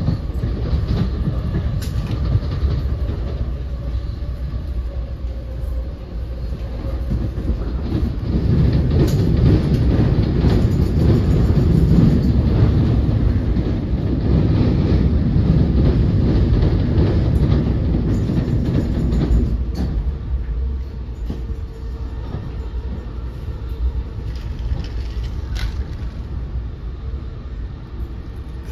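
Inside an NJ Transit Multilevel passenger coach at speed: a steady low rumble of wheels on rail with a few scattered clicks. The rumble grows louder for about ten seconds in the middle while the train crosses a steel truss bridge, then eases.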